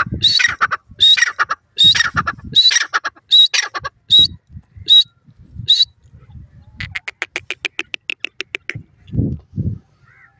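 Grey francolin calling: a loud phrase of rising notes repeated about every 0.7 seconds, dropping to single short notes after about four seconds, then a fast rattling run of short notes lasting about two seconds. Two dull thumps follow near the end.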